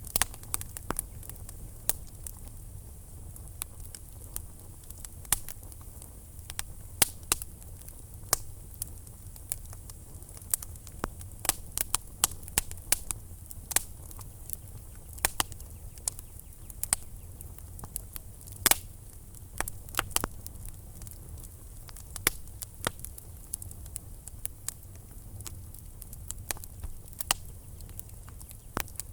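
Wood fire burning in a fireplace: a low steady rumble of the flames with frequent sharp crackles and pops at irregular intervals, several a second.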